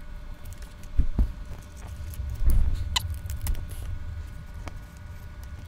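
Hands pressing potting soil around cuttings in a pot: soft rustling and small clicks, with dull low thumps about a second in and again between two and a half and three seconds.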